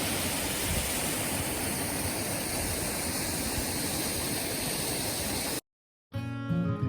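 Waterfall rushing with a steady roar of falling water, cut off abruptly about five and a half seconds in. After a brief silence, strummed acoustic guitar music begins near the end.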